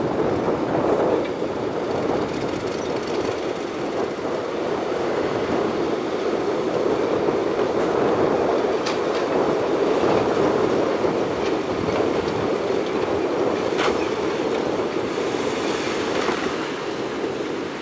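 Shantui bulldozer's diesel engine running steadily, with its steel crawler tracks clattering and a few sharp metallic clanks.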